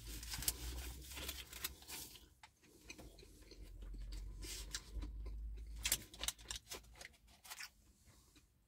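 Quiet crinkling of a paper burger wrapper handled in the fingers, a scatter of small crackles, with the wet sounds of a mouthful of burger being chewed.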